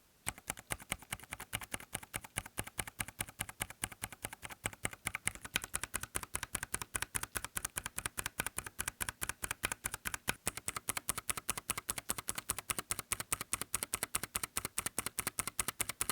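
Nuphy Air75 low-profile mechanical keyboard with Gateron low-profile switches being typed on quickly and steadily, a rapid stream of key clacks. The keys sound without hollow case resonance or stabilizer-wire rattle.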